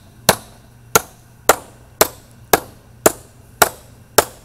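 Small sledgehammer striking a screwdriver's handle, eight sharp blows about two a second, driving the screwdriver blade through the lid of a sealed metal ammo tin to cut it open.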